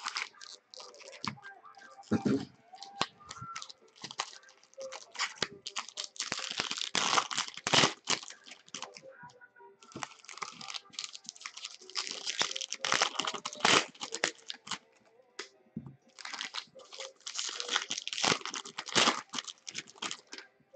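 Foil wrappers of Bowman baseball card jumbo packs crinkling and tearing as the packs are handled and ripped open, in uneven bursts of rustling.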